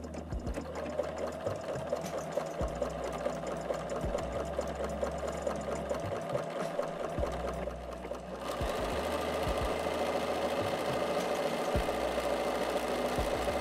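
Bernina 770 QE computerised sewing machine stitching a zigzag through cotton, the needle running in a rapid, even patter. It gets louder about eight seconds in.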